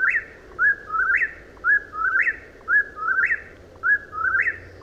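Whip-poor-will singing its three-note 'whip-poor-will' call, repeated about once a second, each call ending on a sharp upward note.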